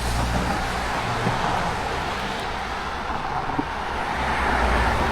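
A motor vehicle going by on the highway: a steady low rumble with road noise that grows a little louder toward the end.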